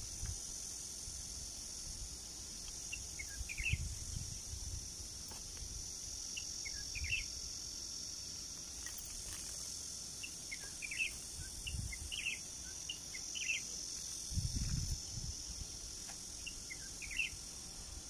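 A steady high-pitched insect drone, with many short bird chirps scattered through it and a few brief low rumbles, the loudest about 14 seconds in.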